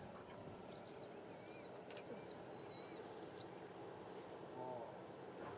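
Small birds chirping: short, high calls that slide in pitch, coming in quick clusters, faint over a light outdoor background noise.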